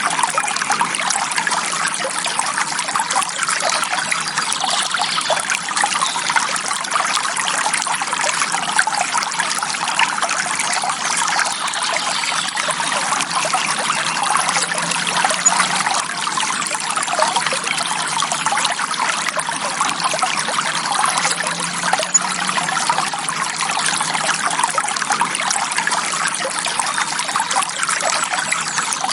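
Small forest stream flowing and trickling steadily over rocks, a constant bubbling babble of water.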